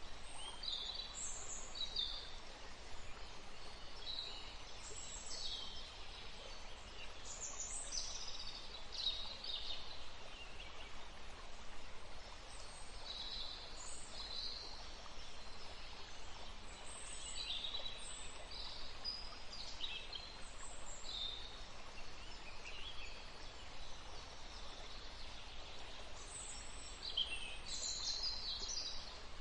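A woodland stream running steadily, with songbirds giving many short, high chirps over it.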